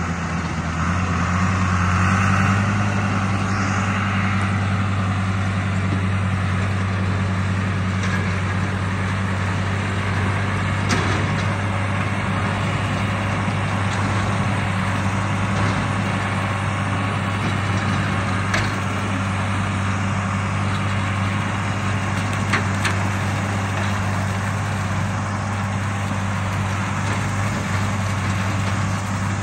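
John Deere tractor engine running steadily under load while driving a rotary cutter (bush hog) through brush, a constant low drone. A few brief sharp ticks stand out.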